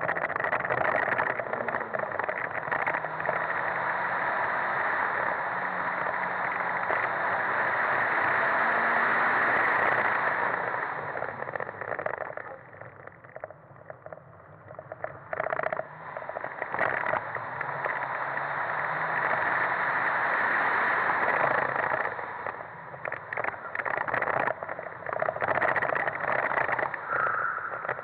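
Fiat Punto HGT's 1.8-litre four-cylinder petrol engine running hard under acceleration, with a heavy rush of wind and road noise. The engine eases off about halfway through, with a few knocks, then builds again.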